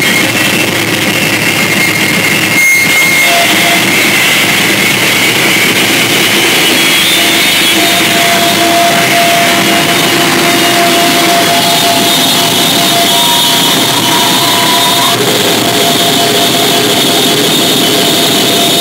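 Live band playing loud, dense distorted noise: a steady wall of sound with a few held tones, a new one settling in about eight seconds in.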